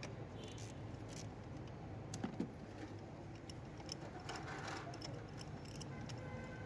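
Faint, scattered metallic clicks and clinks of a hand tool working on the engine as a spark plug is unscrewed, with two slightly louder clicks a little over two seconds in.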